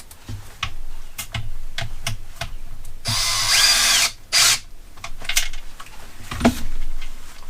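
Small electric drill-driver with a hex bit whirring for about a second, driving a screw back into the RC car's chassis, then a shorter spin just after. Light clicks and knocks of small parts and tools being handled come before and after.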